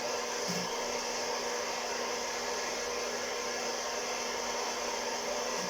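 Hot-air coffee roaster's fan and heater blowing steadily as the beans roast, with a faint steady hum under the rush of air.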